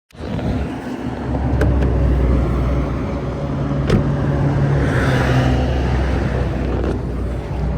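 Car engine running steadily with road noise, a low hum, with two light clicks about a second and a half and four seconds in.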